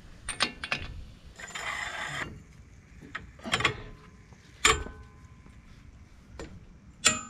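Steel tools being fitted onto a rusted front axle nut: a socket and breaker bar clicking into place and a long cheater pipe handled on the bar. There are a few light clicks, a scraping rattle about a second and a half in, and two sharp metal clanks that ring briefly, one about two-thirds of the way through and one just before the end.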